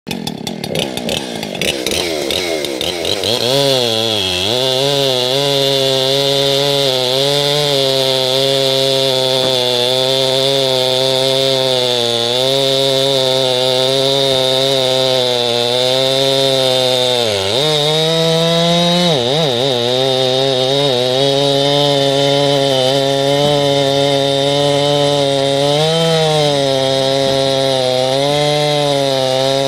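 Jonsered CS2172 two-stroke chainsaw with a 24-inch bar, revving up over the first few seconds and then cutting into a large red oak log at full throttle. Its pitch wavers under load and dips sharply twice past the middle.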